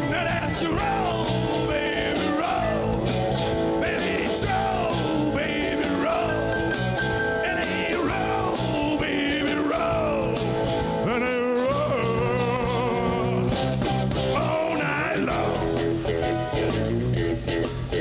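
Live rock band playing: electric guitars, bass and drums, with a sliding, wailing lead melody on top that wavers in a quick vibrato around the middle.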